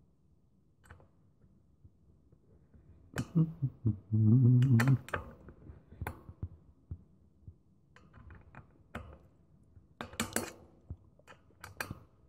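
Allen key turning a very tight hex-socket bolt: scattered sharp metal clicks and clinks as the key is worked and repositioned. About three to five seconds in, a man's short strained grunt.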